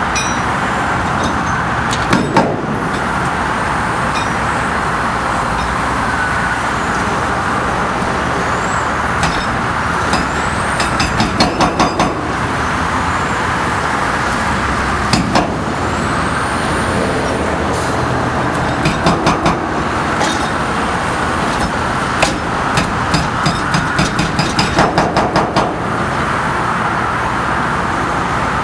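Hydraulic breaker hammer on a Link-Belt 210XL excavator pounding concrete in several short bursts of rapid blows, over a steady background of engine and traffic noise.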